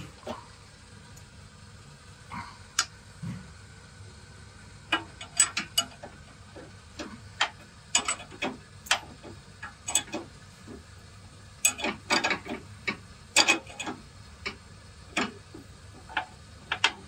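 Wrench working the nut of a front stabilizer (sway bar) link while it is fitted: irregular metallic clicks and clinks, coming in several quick clusters.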